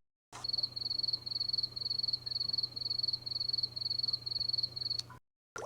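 Cricket chirping sound effect: a regular run of short, high chirps, about two and a half a second, starting and cutting off abruptly.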